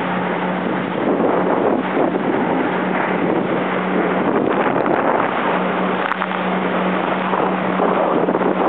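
Jet ski engine running at a steady pitch, mixed with rushing wind noise on the microphone and water noise.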